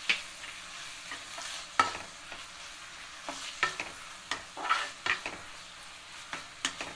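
Minced chicken frying in a wok over high heat, stirred with a spatula: a steady sizzle with irregular scrapes and knocks of the spatula against the pan.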